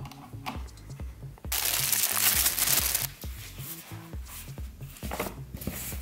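Background music with a steady low beat and light clicks. About a second and a half in, a loud paper rustle lasts about a second and a half as the printed user manual is handled.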